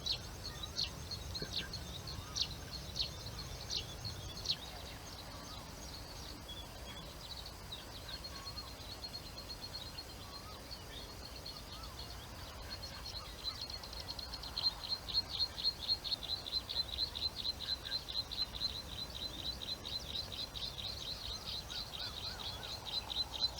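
Small birds calling over a low background rumble. A few sharp, high, down-slurred notes come in the first few seconds. Then a fast, even run of high chirps, several a second, grows louder and steadier over the second half.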